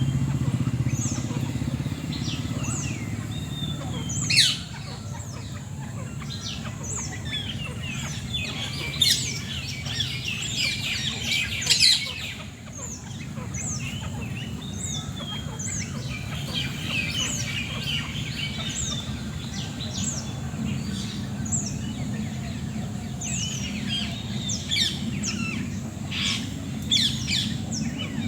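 Birds chirping and calling: a short high chirp repeats about once a second among many overlapping chirps, with a few louder calls standing out, over a low steady hum.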